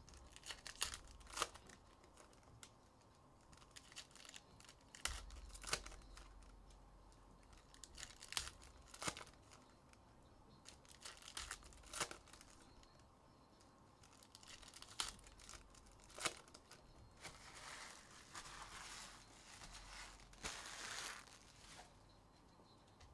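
Trading-card pack wrappers being torn open by hand: faint, sharp rips scattered through, and a longer stretch of crinkling wrapper about three-quarters of the way in.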